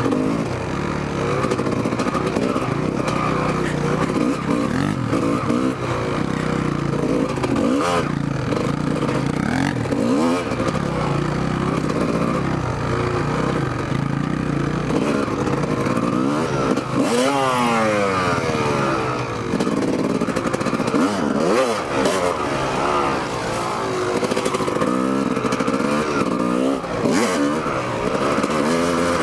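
Kawasaki KX250 dirt bike engine running under way, revving up and down over and over as the rider works the throttle, with occasional knocks and rattles.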